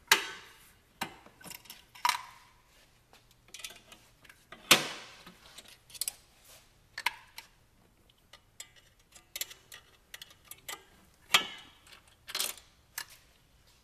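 Steel exhaust springs being pried off a snowmobile muffler with a spring puller: irregular sharp metal clicks, clinks and snaps as the hooks let go. The loudest come at the very start, about a third of the way in, and near the end, some with a short metallic ring.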